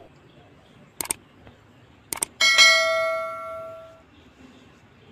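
Clicks about a second in and again just after two seconds, then a bell chime that rings and fades away over about a second and a half: the sound effect of a subscribe-button and notification-bell animation.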